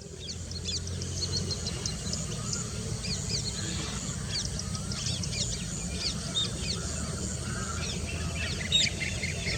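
Many birds calling together: a dense scatter of short, high, whistled chirps, most of them quickly falling in pitch, over a steady low rumble.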